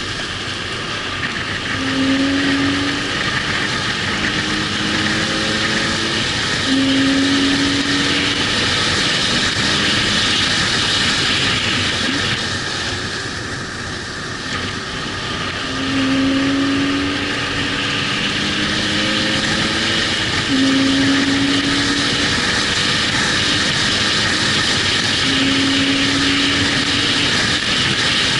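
Car driven at speed around a race track: steady engine and wind noise, with short pitched engine tones coming and going every few seconds. It eases off briefly about halfway through.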